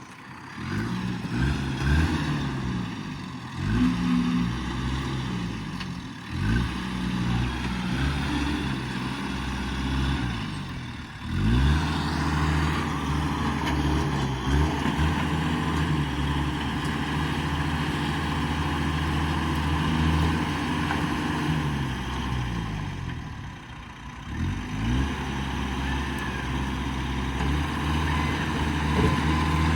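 A motor vehicle's engine running, speeding up about five times: each time its pitch climbs quickly and then holds steady.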